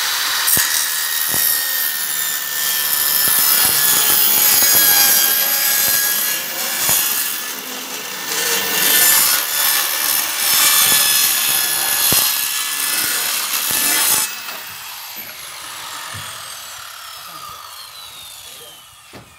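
Handheld circular saw cutting through a plywood sheet with a loud, high whine. About fourteen seconds in the cut ends and the motor winds down, its whine falling steadily in pitch.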